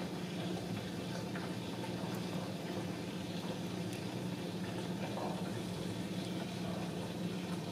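Cats purring: a steady low rumble that does not let up.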